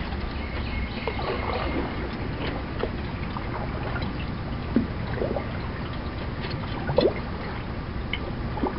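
Canoe paddle strokes in calm water: water gurgling and dripping off the blade in short, scattered splashes over a steady low rumble.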